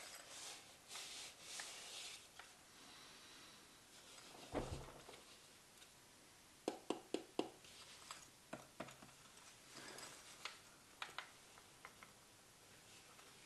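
Quiet handling noises of a turtle shell in the hands: faint rustling, a soft thump about four and a half seconds in, then a quick run of five sharp taps and scattered single clicks after it.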